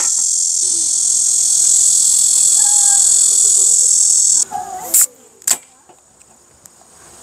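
Loud, steady buzzing of cicadas in summer trees, cutting off abruptly about four and a half seconds in. Two sharp clicks follow about half a second apart.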